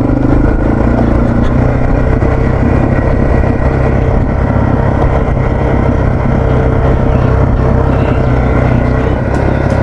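Yamaha TW200's single-cylinder four-stroke engine running at a steady speed under way on a dirt trail, a loud, even engine note heard from on the bike.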